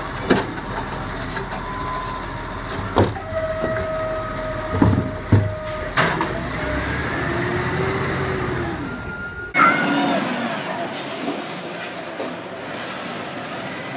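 Side-loader garbage truck emptying a wheelie bin with its hydraulic lifting arm: the engine runs under a steady whine, with several sharp bangs as the bin is tipped into the hopper and set back down. About nine and a half seconds in, a cut switches to another side-loader truck running beside the bins.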